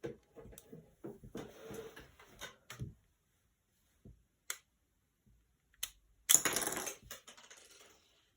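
Plastic clicking and rattling of a Lego revolver being handled and worked: a busy clatter of clicks, a few single sharp clicks, then one louder rattling burst about six seconds in.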